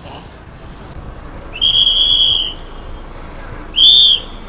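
A bus conductor's whistle blown twice, one long blast and then a short one near the end, the usual signal to the driver of a private bus moving around a stand. Low street noise runs underneath.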